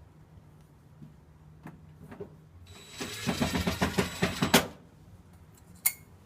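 A power screwdriver or drill runs for about two seconds in a fast, even rattle with a whine, driving a door panel screw, and stops abruptly. A single sharp click follows near the end.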